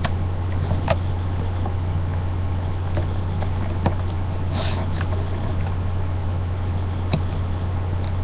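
Steady low hum and hiss with a few faint, scattered clicks as a loom hook hooks rubber loom bands over the pegs of a plastic loom board.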